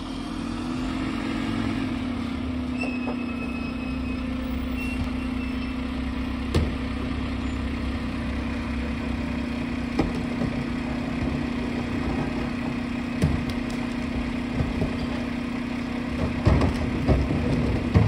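Rear-loading recycling truck's engine running steadily at idle, with a constant low hum. Occasional sharp knocks and clatter break in, heaviest near the end.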